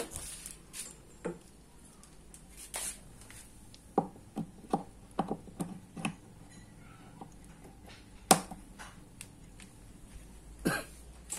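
Scattered sharp clicks and knocks from handling a speakON-style speaker cable and plugging it into a subwoofer cabinet's socket, about a dozen in all, the loudest about eight seconds in.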